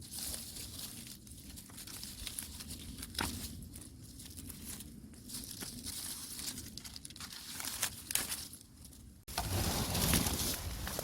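Rustling and crackling handling noise with scattered sharp clicks and snaps; about nine seconds in it cuts suddenly to a louder, denser rustle.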